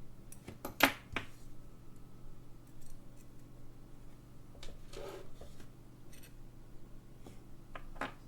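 Sharp metallic clicks and taps of small watchmaker's tools on the parts of a clock movement as it is taken apart. The loudest click comes just under a second in, with a few softer clicks later and two close together near the end.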